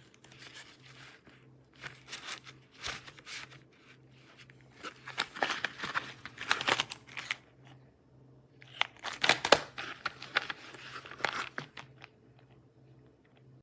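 Handling noise: irregular crinkling and rustling in bursts, loudest around the middle and again after a short pause, with a faint steady hum underneath.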